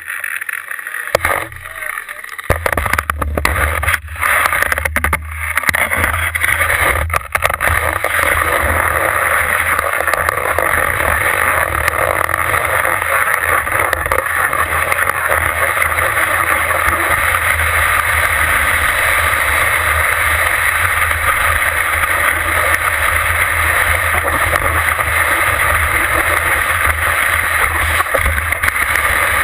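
A few knocks in the first seconds, then from about two seconds in a steady rush of skis gliding over snow, with a low wind rumble, heard close up at the ski tip.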